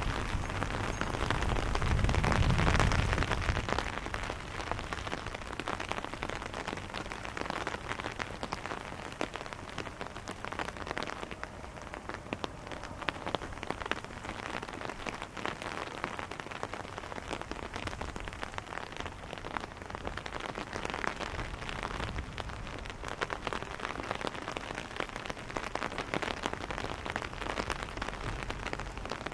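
Steady rain pattering on wet paving stones, made up of countless small drop taps. A louder, deeper rush swells about two seconds in and dies away by about four seconds.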